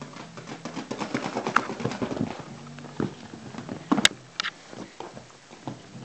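A cat's claws scrabbling and a stick tapping on a leather sofa: a fast run of scratches and clicks, then two sharp clicks about four seconds in.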